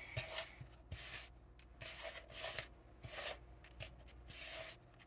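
Faint, irregular rubbing and scraping as chicken party wings are worked around in a bowl of flour to coat them.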